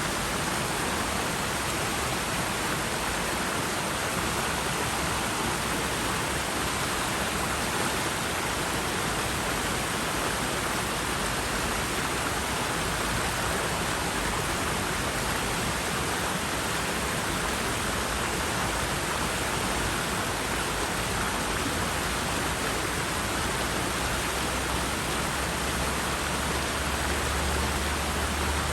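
River water rushing steadily over rocks, an even hiss-like roar with no breaks. A low rumble rises under it near the end.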